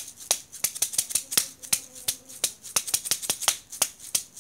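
Rapid, irregular clicking, about five or six sharp clicks a second, from fingers tapping close to the recording device's microphone.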